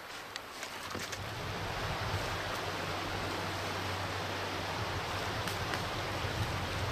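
Steady rush of a creek's flowing water, swelling in over about the first two seconds and then holding even. A few faint crackles of footsteps in dry leaf litter come in the first second.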